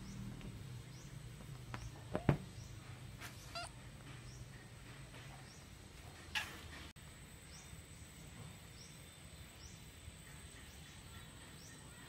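Faint outdoor ambience with a bird chirping repeatedly, short high chirps about once a second. A sharp click comes about two seconds in, and a louder, falling call about six seconds in.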